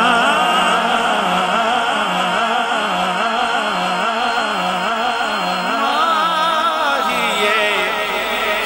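Male naat reciter singing into a microphone: a long, wordless melismatic line with wavering ornaments and held notes, with no pause between phrases.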